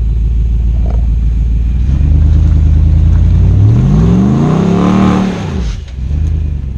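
Off-road 4x4's engine running low, then revving up for about two seconds and falling back off as it works at climbing a trail obstacle.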